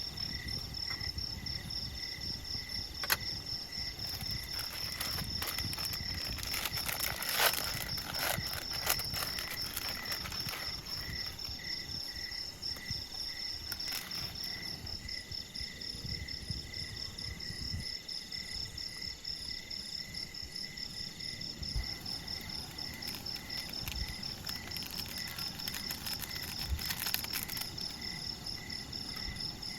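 Crickets chirping steadily in an even, pulsing rhythm at two pitches, with a few sharp clicks or taps, a cluster of them a third of the way in.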